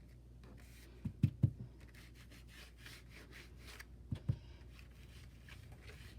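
Ink sponge dabbing and rubbing distress ink through a stencil onto a paper tag, in short repeated scuffing strokes. There are a few dull low thumps, about a second in and again about four seconds in.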